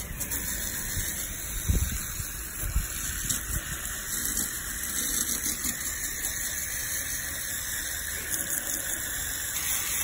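Low-pressure stream of water from a garden hose nozzle spraying onto the fins of a heat pump's outdoor coil and splashing off the metal: a steady spray sound throughout.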